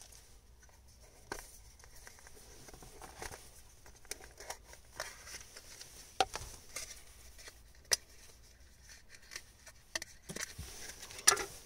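Faint handling noises of a small product box being opened and its tray handled: scattered light taps and rustles, with a few sharper clicks, the loudest near the end.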